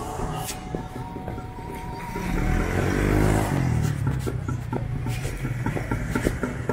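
Street traffic with a motor vehicle passing close by: its engine grows loud about two seconds in, peaks, and falls in pitch as it goes past, over a steady background of other engines.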